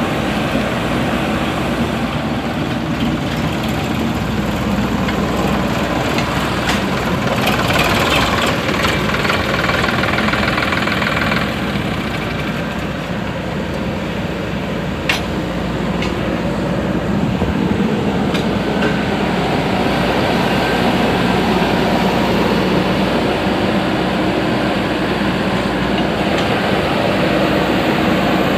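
Diesel engines of heavy earth-moving machinery, a backhoe loader and a tractor, running steadily while they work, with a sharp click about halfway through.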